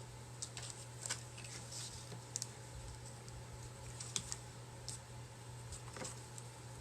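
Faint, irregular small clicks and rustles of hands handling craft materials on a work surface, over a steady low electrical hum.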